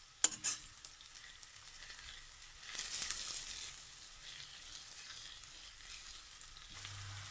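Sliced onions sizzling in hot oil in a karahi as they are stirred with a metal skimmer, half fried on their way to golden brown. A sharp knock about a quarter second in, a few light clicks after it, and the sizzle swells briefly about three seconds in.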